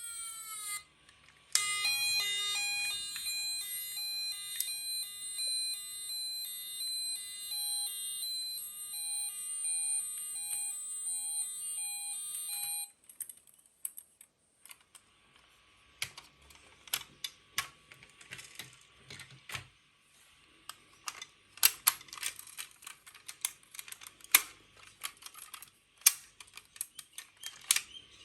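A toy car's electronic sound chip plays a fast, repeating pattern of beeping tones for about eleven seconds, then stops. After it, light plastic clicks and rattles come irregularly as the toy cars are handled and rolled.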